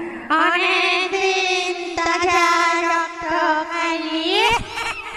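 A sustained, voice-like tone held on one pitch with a fast wobble, broken by brief gaps, gliding upward near the end.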